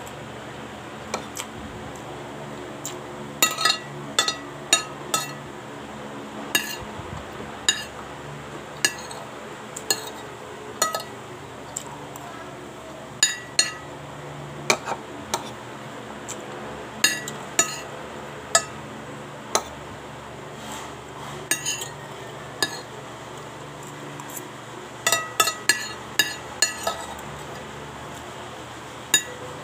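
Metal spoon clinking and scraping against a ceramic plate while scooping rice, in irregular sharp taps. There are bunches of quick clinks about three seconds in and again near the end.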